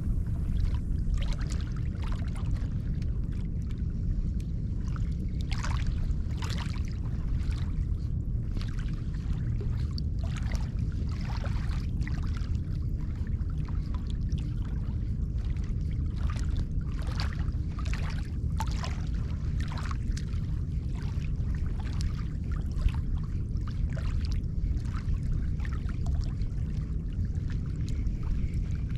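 Small waves lapping and splashing irregularly against the shore, over a steady low rumble.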